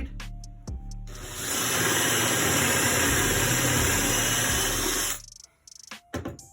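Makita power drill boring a 25 mm hole through a clamped scrap-wood guide into the workpiece: the motor runs up about a second in and drills steadily with a high whine and the bit cutting through wood, stopping about five seconds in. A few clicks come before and after.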